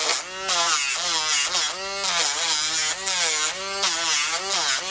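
A Dremel rotary tool with a sanding drum grinding down a dog's toenail. Its whine dips in pitch and recovers several times as the drum is pressed to the nail and eased off.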